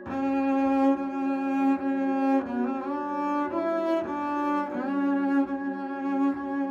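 Bowed string music: low strings such as cello and double bass enter abruptly and hold long notes, sliding into new pitches about two and a half seconds in and again near five seconds.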